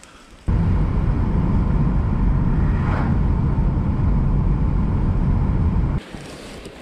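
A Subaru car driving, heard from inside the cabin: a loud, steady low rumble of road and engine noise that starts suddenly about half a second in and cuts off near the end.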